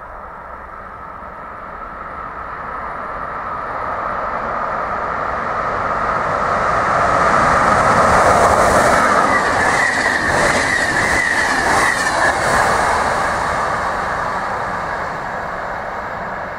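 A Croatian Railways 1142-series electric locomotive with a rake of passenger coaches passes by. The rail noise builds for several seconds and peaks as the locomotive goes past about eight seconds in. The coaches' wheels then click over the rail joints under a high whine before the sound fades as the train moves away.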